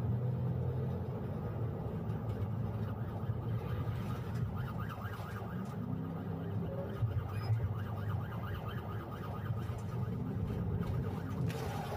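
Police siren sweeping up and down quickly, several times a second, heard from inside the pursuing cruiser over steady engine and road noise. The fast sweeps stand out most from about five to eight seconds in.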